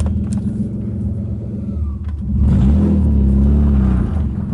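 BMW E36's straight-six engine idling, then revved for about two seconds and dropping back near the end, with a short click just before the rev while the driver works the clutch to find reverse.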